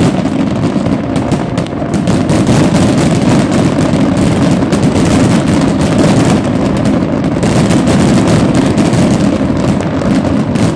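Fireworks display: aerial shells and fountain fireworks going off together in a loud, continuous barrage of rapid bangs and crackling, with no pause.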